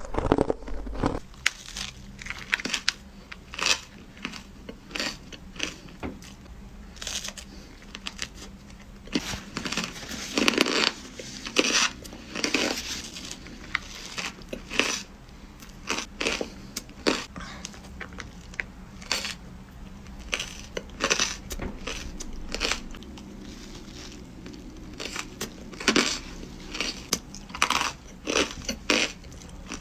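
Hard crushed ice being bitten and crunched between the teeth: a run of sharp, irregular crunches, sometimes several in quick succession.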